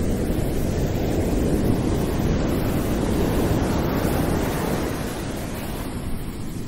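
Ocean surf washing onto a beach: a steady rush of waves that swells in the middle and eases off a little near the end.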